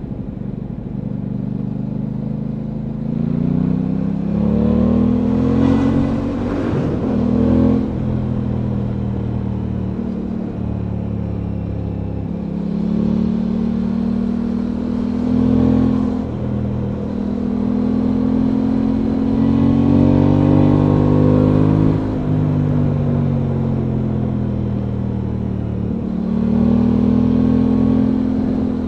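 Aprilia Tuono 660's parallel-twin engine running under way, heard from the rider's seat. Its note climbs as the bike accelerates and drops back sharply several times.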